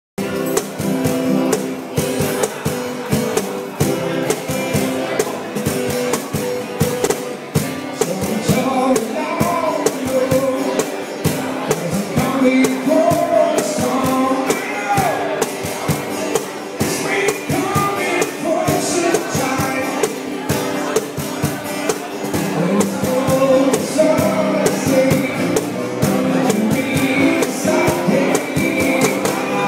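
Live acoustic guitar strummed in a steady rhythm, with a man singing into a microphone. The strummed chords play alone at first, and the voice comes in about eight seconds in.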